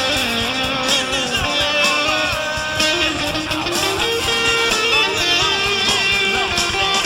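A band playing a guitar-led jam, with notes bent up and down over a steady beat.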